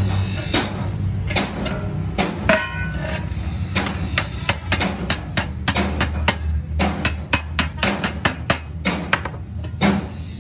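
Hammer striking the rim of a stainless steel sheet cylinder with a disc fitted in its end: a run of sharp metal-on-metal blows, spaced out at first, then about three a second through the middle. A steady low hum sits underneath.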